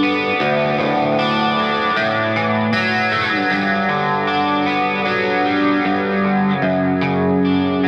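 Background music led by a distorted electric guitar with effects, sustained chords changing every second or so, with no singing.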